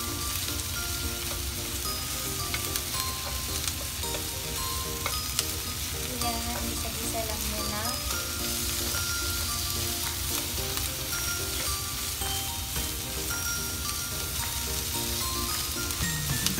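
Cauliflower and sliced pork sizzling in an oiled frying pan while being stirred and turned with wooden chopsticks, a steady sizzle with small scattered ticks of the chopsticks on the pan.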